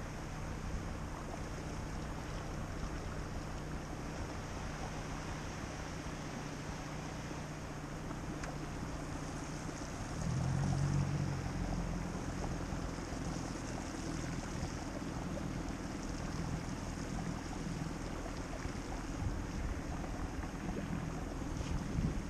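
Moving river water and wind noise on the microphone aboard a drifting skiff, with a steady low hum underneath that gets a little louder about ten seconds in.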